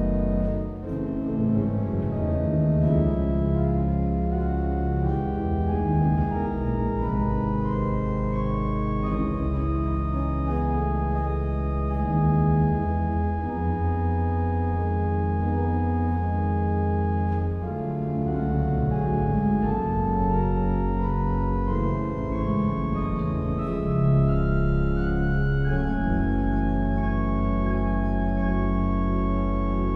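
Background music with sustained chords over a steady bass, its melody climbing step by step twice.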